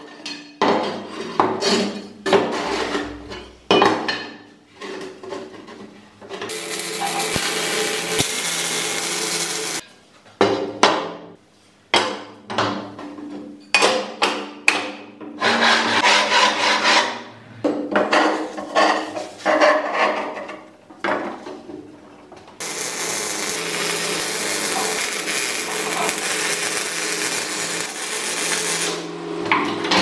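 Steel box-section tubes and bar knocking and clattering against each other and the workbench as they are handled and fitted. Between the knocks come stretches of steady hiss, the longest lasting several seconds near the end, from MIG tack welding of the steel.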